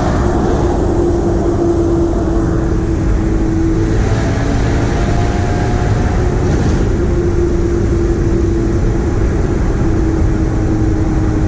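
Car engine and road noise at a steady cruising speed, its hum holding a nearly constant pitch that drifts only slightly.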